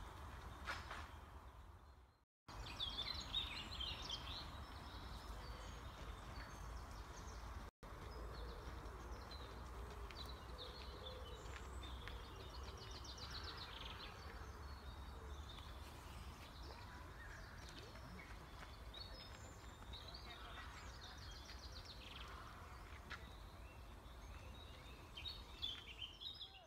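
Several songbirds singing and chirping, short high phrases and trills one after another, over a low steady rumble. The sound cuts out briefly about two seconds in and again near eight seconds.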